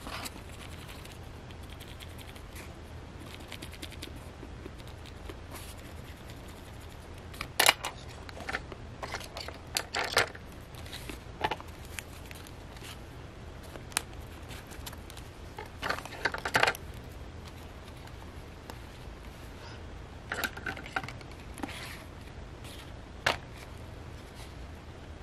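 Hands working with paper journal signatures, a pencil and clothespins: scattered sharp clicks, taps and short rustles of paper, in a few clusters over a steady low hum.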